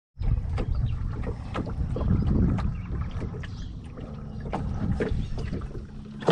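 Low rumbling wind buffeting the microphone aboard a small fishing boat, with scattered knocks and clicks and a faint steady low hum from about halfway through.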